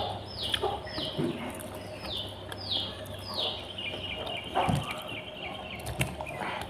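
A bird calling: a run of clear whistled notes that each fall sharply in pitch, about two a second, giving way a little past halfway to a faster, steadier chirping.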